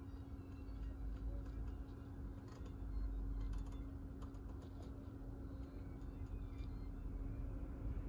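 Rotary scroll knob on a 2007 Range Rover Sport's dashboard audio unit clicking through its detents as it is turned, in short runs of quick faint clicks, over a steady low hum.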